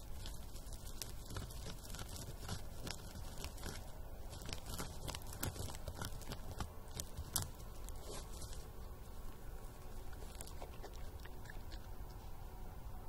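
Eurasian badger rooting in dry ground for grubs, scraping at the earth and chewing what it digs out: irregular crunching and crackling clicks, busiest for the first eight seconds or so, then sparser.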